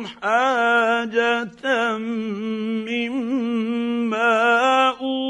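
A man chanting Quran recitation in Arabic in measured tajweed style, holding long notes with slow melodic turns and pausing briefly for breath twice.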